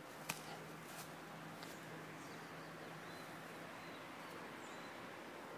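Quiet outdoor background hiss with a few faint, short, high bird chirps, and one sharp click about a third of a second in.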